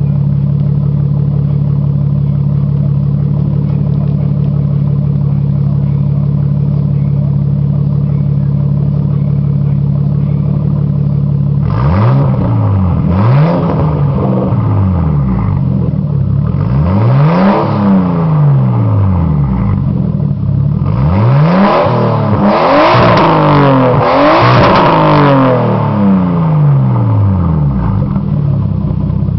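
Nissan Skyline R33's turbocharged straight-six idling steadily through an exhaust with a split dump pipe into the stock downpipe and catalytic converter, then 3-inch pipe to the tail. Part way through it is blipped several times, each rev rising and falling in pitch, then given a quicker run of revs near the end before settling back to idle.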